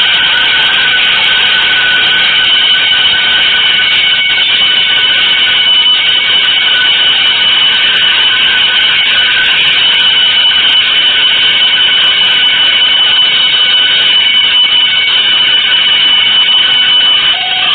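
Loud, dense experimental noise music: an unbroken wall of harsh sound with shrill, steady high tones held throughout, dipping briefly near the end.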